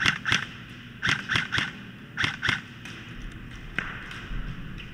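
Airsoft rifle firing single shots in quick groups of two and three, then one more shot near the end, each a sharp short crack.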